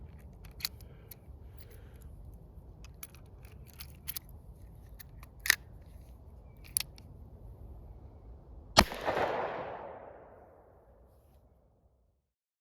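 Clicks of a Colt Model 1917 .45 ACP double-action revolver's action being worked, about half a dozen spread out, then about nine seconds in one loud sharp bang with a long fading tail.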